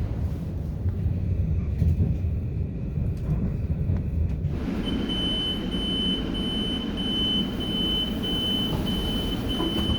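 Metro-North M8 electric train running with a steady low rumble. About halfway in, a single high electronic beep tone starts and holds, broken by brief gaps, over the rumble.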